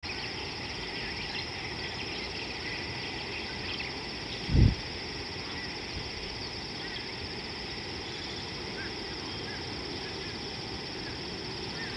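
Outdoor savanna ambience: a steady high insect drone over a noisy background, with faint bird chirps in the second half. About four and a half seconds in, a brief low thump, like a gust of wind on the microphone, is the loudest sound.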